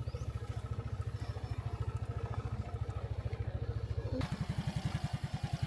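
Motorcycle engine running with an even, rapid low pulse; the beat changes about four seconds in.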